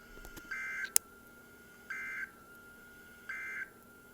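Three short bursts of EAS digital data tones over NOAA Weather Radio, each about a third of a second long and about a second and a half apart: the brief end-of-message bursts that close an emergency alert. A single sharp click about a second in.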